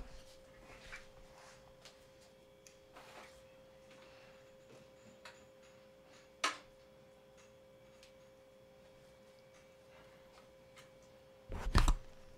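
Handling noise from someone reaching over a desk near the microphone: scattered small clicks, one sharp click about six seconds in, and a loud knock near the end. A faint steady tone runs underneath.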